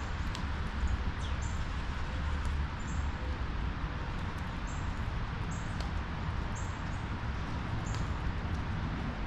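Short, high bird chirps repeating about once a second over a steady low rumble.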